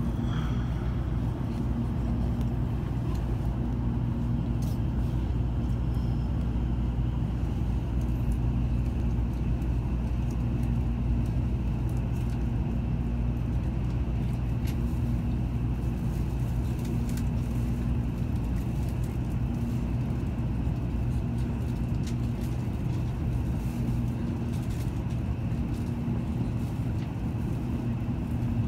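Shinkansen bullet train cabin noise at speed: a steady low rumble with a low hum that swells and fades every couple of seconds.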